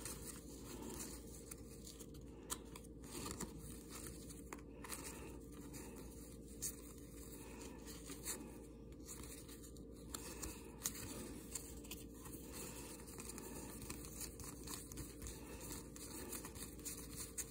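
Faint papery flicks and slides as a stack of 1991 NFL Pro Line football cards is thumbed through one card at a time, with scattered small clicks over a low steady hum.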